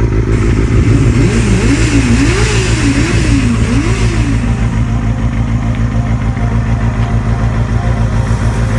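Kawasaki ZXR250's 250cc inline-four engine running, its revs rising and falling about four times in the first few seconds, then holding steady.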